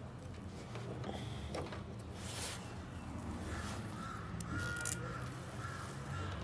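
Faint rustling and small clicks of a plastic power cord being handled and pushed into the rear socket of a copier, over a low steady hum. About halfway through, a few short high tones join in.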